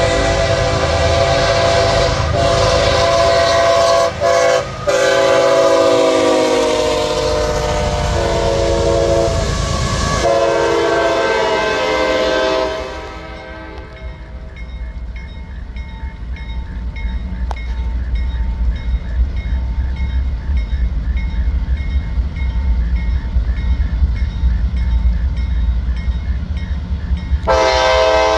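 A diesel freight locomotive's air horn sounds long blasts that fall in pitch as it passes, then cuts off. A grade-crossing bell then rings steadily over the low rumble of a diesel freight train drawing closer. Near the end the approaching lead locomotive blows its horn.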